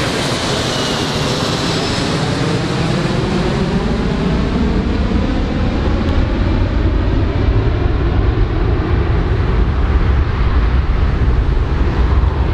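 Four-engine jet airliner's engines as it flies away, a high whine falling in pitch over the first few seconds above a steady rushing noise. A deep rumble grows stronger later on.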